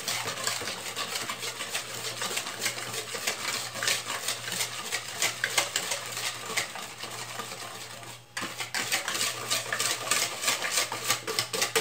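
Wire balloon whisk beating eggs and sugar in a plastic bowl by hand: a fast, continuous run of light clicks and scrapes against the bowl, pausing briefly about eight seconds in.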